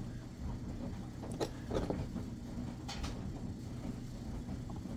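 Aftermarket recoil starter for a Husqvarna 55 chainsaw being wound and worked by hand, giving a few light clicks and creaks from the pulley and spring, a test of whether the re-bent recoil spring hook now holds.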